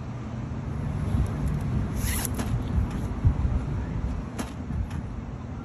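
Steady low rumble of street traffic, with a brief rustle about two seconds in and a few faint knocks after it.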